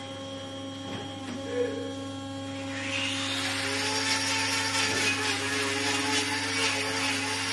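Handheld angle grinder cutting into a cow's hoof during hoof trimming: a rasping grinding noise with a whine starts about three seconds in and keeps on, over a steady low electric hum.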